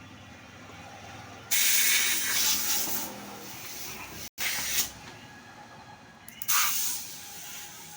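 Compressed air hissing in bursts: a long blast about a second and a half in, a short one near the middle, and another near the end.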